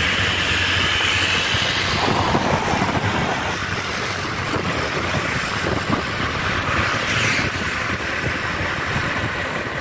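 Steady engine and road noise heard from on board a vehicle moving along a paved road: a continuous low rumble with hiss.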